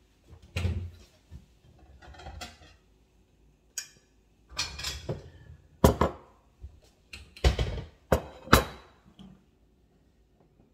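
Kitchen clatter of pots and utensils being handled: a string of sharp clanks and knocks, the loudest bunched near the end, with some scraping in between.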